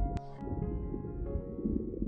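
Calm background music of held keyboard-like notes that change every half second or so, over a steady low noisy rumble.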